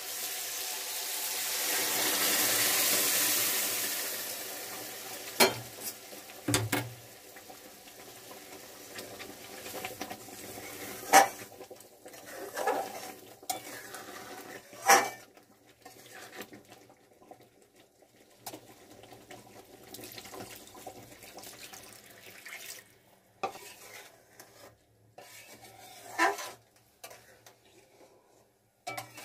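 Boiled moong dal poured into a hot kadai of fried fish head and spices, hissing loudly for a few seconds and then dying down to a gentle simmer. A steel spatula knocks and scrapes against the pan every few seconds as the dal is stirred, and water is poured in later.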